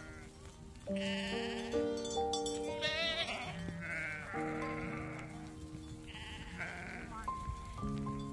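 Background music of held notes that step from pitch to pitch, with a flock of sheep and goats bleating over it; a quavering bleat stands out about three seconds in.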